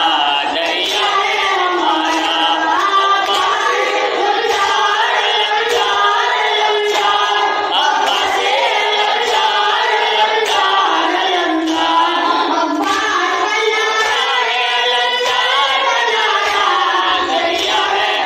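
A boy's voice reciting a noha, a Shia lament for Muharram, through a microphone and PA, with men's voices joining in as a chorus.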